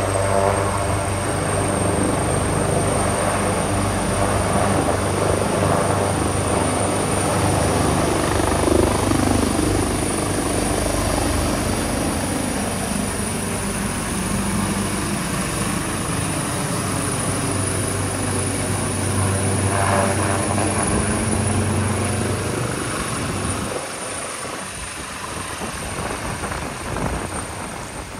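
Leonardo AW139 twin-turbine helicopter flying overhead: steady rotor noise with a high turbine whine, growing fainter near the end.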